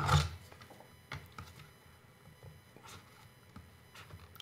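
Scattered light clicks and taps of hands handling a drone's plastic shell, wiring and circuit board and picking up a small hand tool, with a short louder burst of handling noise right at the start.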